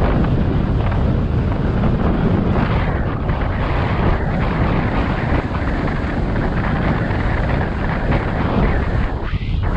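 Wind buffeting the helmet-mounted camera's microphone as it moves at riding speed on an electric scooter: a steady, loud, low rumbling rush that eases briefly near the end.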